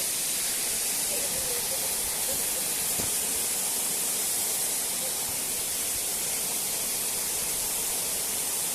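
Steady rushing hiss of a waterfall and its falling water, even and unbroken, with a single sharp click about three seconds in.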